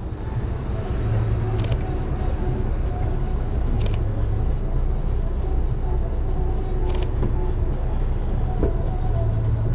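Car engine running close by, a steady low rumble, with a few short clicks over it.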